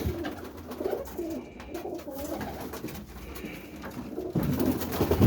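Roller pigeons cooing softly in an enclosed loft, low warbling calls overlapping one another.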